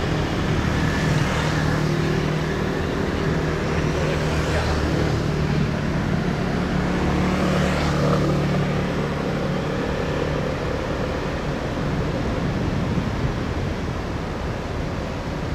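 Road traffic passing close by: two vehicles rise and fall as they go past, about four and eight seconds in, over a steady low engine hum.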